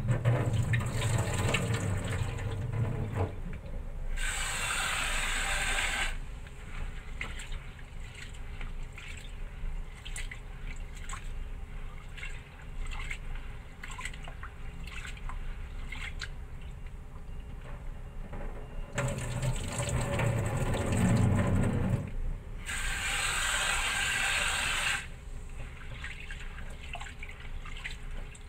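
Hands washing soaked black glutinous rice in a plastic bowl of water: grains swished and rubbed with small splashes and clicks. Twice, a few seconds of louder rushing water, as the water is changed or poured off.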